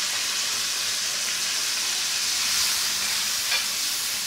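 Green chillies sizzling with a steady hiss in hot oil in a wok, with yogurt and lemon juice just added to the pan. A brief scrape of the spatula about three and a half seconds in.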